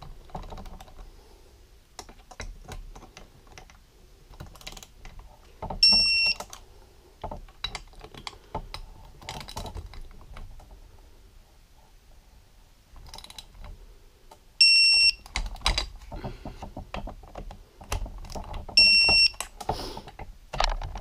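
Digital torque wrench beeping three times, a short high beep each time a crankcase bolt reaches its set torque, with clicking and tool handling between the beeps.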